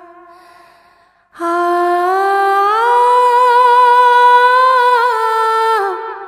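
Wordless humming in one voice, as a soundtrack. A held note fades away in the first second. After a short gap a new note begins, rises a step, is held long and steady, then dips and stops near the end.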